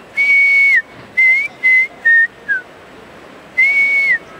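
A man whistling an imitation of the African fish eagle's call, a birding guide's lure call. Each phrase is one long high note that drops at the end, then four short notes stepping down in pitch. The phrase comes twice, the second starting about three and a half seconds in.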